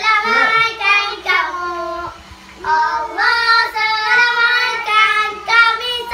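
Children singing a birthday song together, in sung phrases with a short break about two seconds in.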